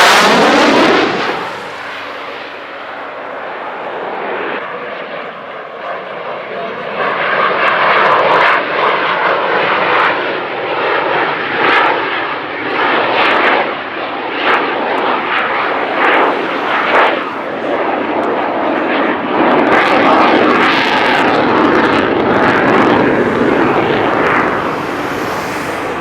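Dutch F-16 fighter's Pratt & Whitney F100 turbofan during a display: a loud fast pass right at the start, then a long rushing, crackling jet noise that swells and eases as the jet manoeuvres, loudest about eight and twenty seconds in.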